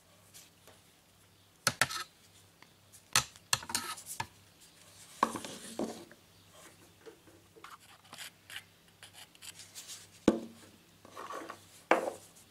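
Pen-making parts being handled on a wooden workbench: scattered clicks, knocks and short rubs from wooden pen blanks, a brass tube on a black fitting tool and a quick-grip bar clamp. A sharp knock about ten seconds in is the loudest, and a faint steady hum runs underneath.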